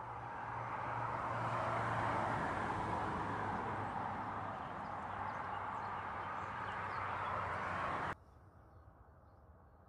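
A steady rushing outdoor background noise with a faint low hum, swelling over the first two seconds, that cuts off abruptly about eight seconds in. Quieter outdoor background with faint bird chirps follows.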